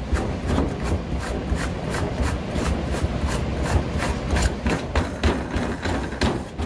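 Plastic bulkhead fitting screwed in by hand: a run of short rubbing, scraping twists, about three a second.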